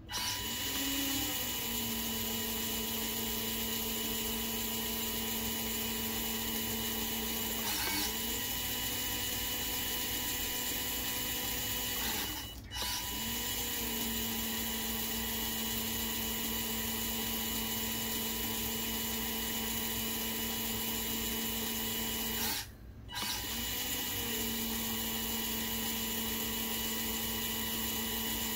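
Motor-driven hydraulic pump of a scale-model excavator running steadily with a whine, its pitch sagging and recovering each time the load changes while the boom cylinders are worked. The sound cuts out briefly twice, about twelve seconds and twenty-three seconds in, then starts again.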